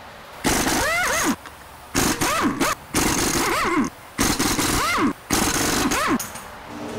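Pneumatic impact wrench loosening a wheel's lug nuts: five short bursts of hammering, each with a whine that rises and falls as the tool spins up and down, with brief pauses between them.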